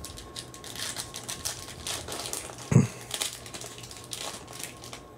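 A foil trading-card pack wrapper being torn open and crinkled by hand, a dense run of small crackles and rustles, with one brief low thud about halfway through.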